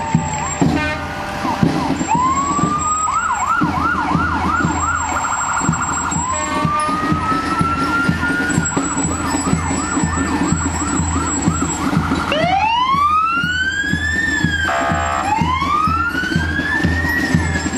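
Electronic emergency-vehicle siren. It sweeps up into a fast yelp twice, then gives two slow wails, each rising and falling, near the end, over a steady low rumble.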